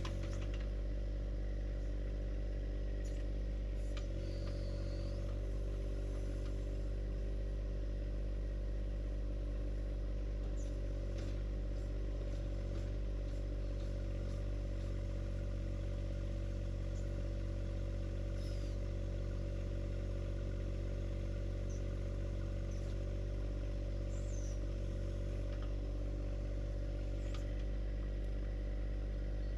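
John Deere 1025R compact tractor's three-cylinder diesel engine running at a steady speed.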